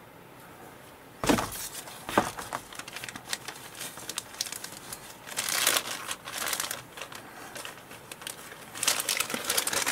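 Clear plastic bag crinkling and rustling as a plastic model-kit sprue is handled inside it, in irregular crackly bursts starting about a second in.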